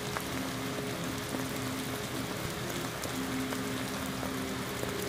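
Heavy rain pouring onto wet pavement, a steady dense hiss of drops with no let-up, with music playing faintly underneath.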